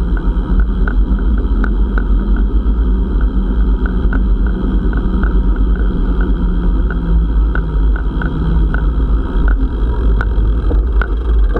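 Wind rushing over the microphone of a handlebar-mounted camera as a bicycle rolls along a concrete road, with a steady run of light ticks.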